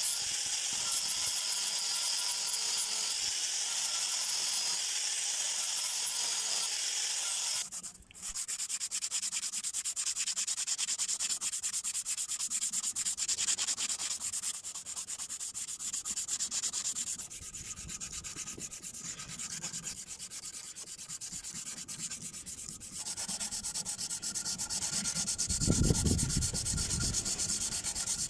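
Abrasive sanding on the steel knife, a steady rasping rub. It breaks off briefly about eight seconds in, then carries on, and a low thump comes near the end.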